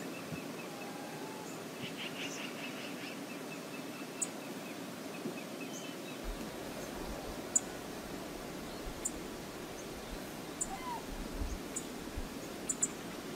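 Steady rush of flowing river water with small bird calls over it: a thin high trill in the first few seconds, then short sharp high chirps every second or two.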